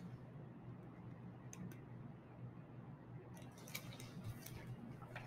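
Quiet room with a steady low hum, and soft rustling and light clicks of a picture book's pages being handled, mostly in the second half.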